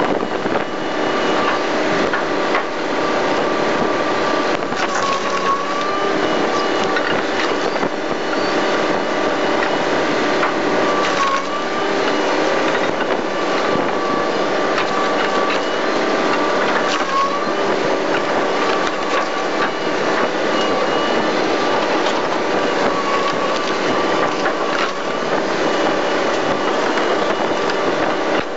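Twin-shaft industrial shredder tearing up rubber tyres: continuous crushing and tearing over a steady machine whine that dips briefly in pitch about every six seconds.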